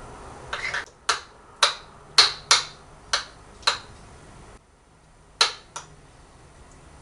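A hard kitchen utensil tapping sharply with a short ring: a quick rattle, then six taps about half a second apart, a pause, and two more taps.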